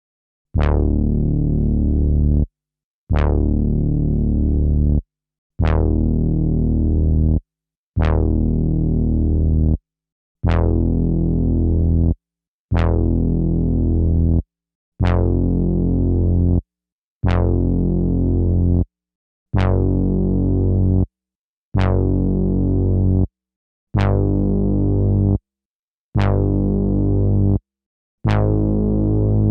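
Sampled synthesizer or keyboard notes played back one at a time through an Akai MPC sampler, about a dozen in a row at different pitches. Each note starts with a bright attack, is held about two seconds and cuts off sharply.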